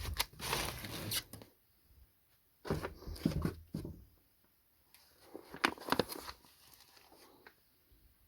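Packaging being handled: rustling, crinkling and clicks in three short bouts with pauses between.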